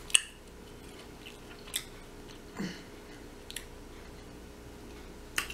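Close-up mouth sounds of eating: a few sharp chewing clicks and lip smacks, spaced a second or two apart, over a quiet background.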